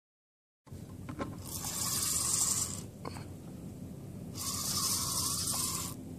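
Spinning reel's drag slipping and giving line twice, about a second and a second and a half each, as a hooked fish pulls against the bent rod.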